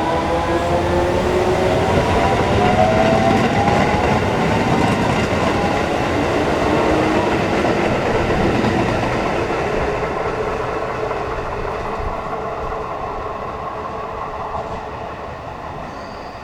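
Shin-Keisei 8800 series electric train pulling away, its Mitsubishi GTO-VVVF inverter whining in several tones that rise in pitch over the first seconds as it accelerates. The whine gives way to wheel and rail noise with some clatter over rail joints, fading steadily as the train moves off.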